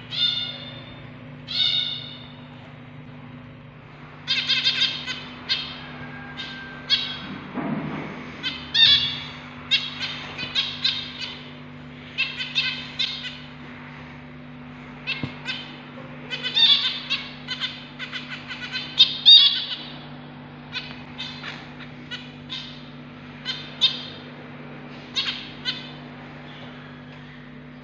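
Zebra finch nestlings giving short, harsh, repeated calls in quick clusters, over a steady low hum.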